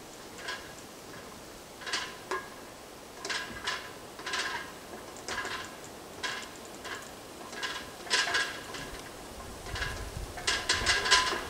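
Irregular sharp clicks and taps, roughly one every second, with a quick run of several near the end.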